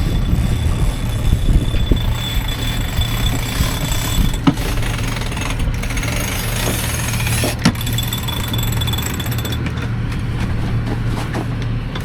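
A sailboat's inboard diesel engine running steadily with a rhythmic low knock, holding the boat into the wind while the mainsail goes up. A couple of sharp knocks of deck gear sound midway.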